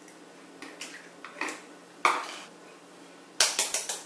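Eggs being cracked with a knife: a few scattered clicks and knocks of shell and knife on the bowl, then a quick run of about five sharp taps near the end as the blade is knocked against an egg to break it.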